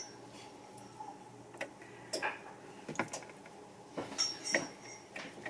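Faint, scattered clicks and light knocks of kitchenware being handled, with a brief high tone about four seconds in.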